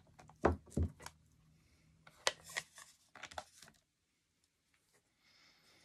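Stamp on an acrylic block being tapped on an ink pad and pressed onto card stock. There are two dull knocks about half a second in, then scattered light clicks and taps, and a faint rubbing near the end.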